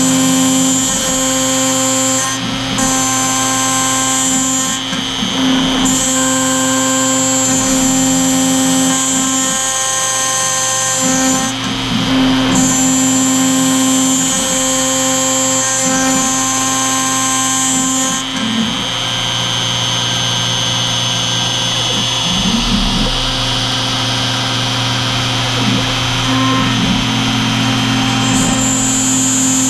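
CNC router spindle running while a small end mill cuts a pocket in Delrin plastic. The machine noise is steady, with a high whine that cuts out and back in every few seconds and then drops away for most of the last ten seconds.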